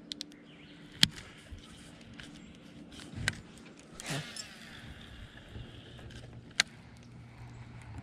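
Sharp clicks and knocks of gear being handled in a fishing boat, four or five in all, the loudest about a second in and near the end, over a faint steady low hum; a brief swish falling in pitch a little past the middle.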